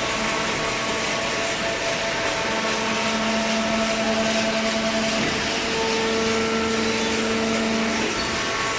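Hydraulic cardboard baler running: a steady machine drone of its electric motor and hydraulic pump, with a held hum whose pitch shifts about five seconds in and again near the end as the load changes.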